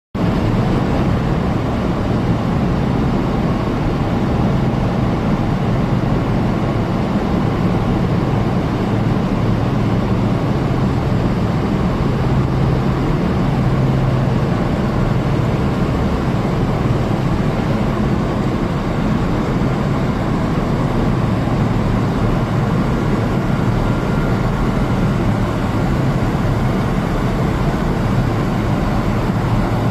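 Rotary furnace installation running with its fuel oil burner firing: a loud, steady low-pitched noise that holds even throughout.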